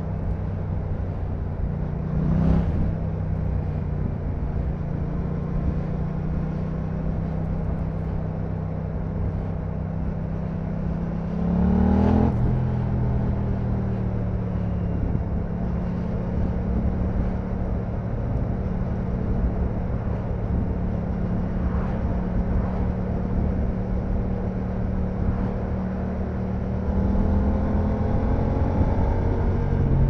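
Yamaha MT-07's 689 cc parallel-twin running through an Akrapovic full exhaust at steady riding revs. The revs flick up briefly about two and a half seconds in, rise and fall back around twelve seconds in, and climb gradually near the end.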